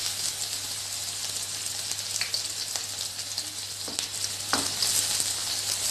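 Chopped onion sizzling in hot oil in an iron kadhai, with a spatula scraping and clicking against the pan a few times from about two seconds in as the onion is stirred.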